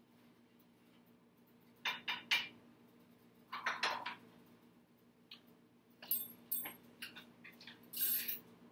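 Dishes and utensils clattering and clinking on a kitchen counter in several short bursts: about two seconds in, around four seconds, and again from about six to eight seconds in. A faint steady hum runs underneath.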